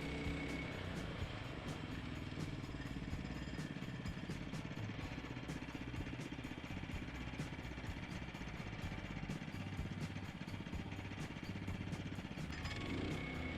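Small gasoline engine of a Woodland Mills HM122 portable band sawmill running steadily.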